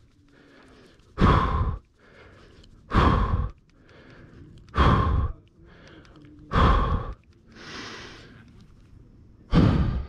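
A person breathing deeply and deliberately: five loud exhales blown across the microphone, about one every two seconds, with a softer hissing breath between. These are slow breaths taken to calm nerves.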